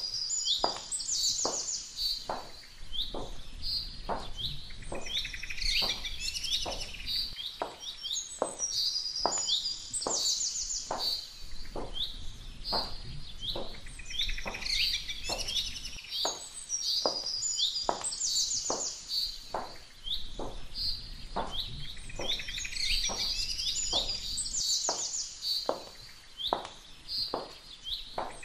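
Background soundtrack of birdsong chirps over a steady ticking beat about twice a second, with a low hum that fades in and out every few seconds.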